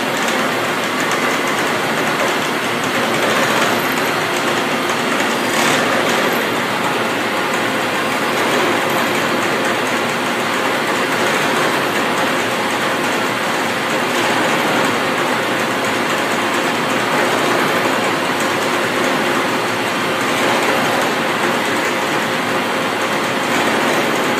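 Butler TE 3000 Elgamill CNC boring mill's milling head cutting a metal block under flood coolant: a loud, steady machining noise with a faint steady hum beneath it and one sharp tick about six seconds in.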